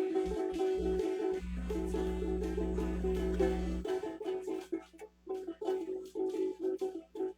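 Acoustic stringed instrument played with quick, repeated plucked notes and brief gaps between phrases. A low steady hum sounds under it and stops suddenly about four seconds in.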